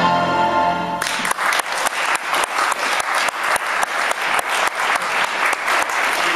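Music stops about a second in and an audience applauds steadily through the rest.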